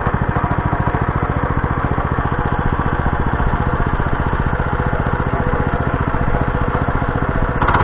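Kentavr 2090B walk-behind tractor's air-cooled single-cylinder petrol engine running steadily with an even, rapid firing beat.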